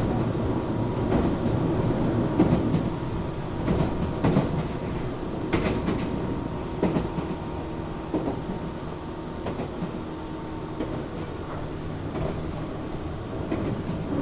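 Running noise heard from inside a resistance-controlled Tobu 8000 series electric commuter train. A steady rumble with a faint hum carries scattered knocks from the wheels on the track, and it grows quieter in the second half.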